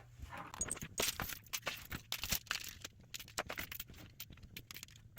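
Irregular rustling and clicking of pants fabric and small parts being handled and moved about.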